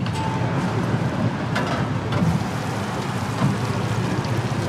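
Steady sizzling of egg omelets frying on a flat-top griddle, over a low steady rumble, with a few light knocks.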